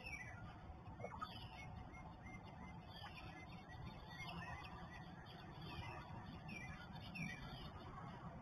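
Songbirds singing, among them northern cardinals, Carolina wrens and an American robin, with falling whistled notes repeating about once a second.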